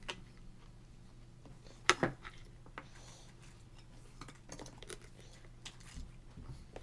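A toddler's metal fork tapping and scraping on a plastic divided plate: scattered light clicks, with the loudest pair of knocks about two seconds in.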